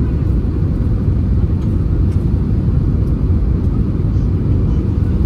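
Steady low rumble of an Airbus A320-200's engines and airflow heard inside the passenger cabin during the descent on approach.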